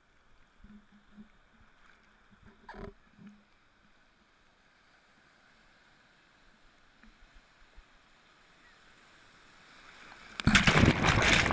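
Surf at a camera held at water level: faint water sounds for most of the time, then about ten seconds in a breaking wave crashes over the camera in a loud rush of foaming, splashing water lasting about a second and a half.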